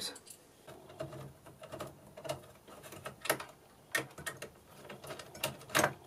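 Small screwdriver undoing the mounting screws of a Zalman liquid-cooler block over a CPU: irregular light metallic clicks and ticks, the loudest a little before the end.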